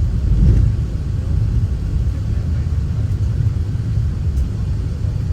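Steady low rumble of an Airbus A380 airliner heard from inside its cabin.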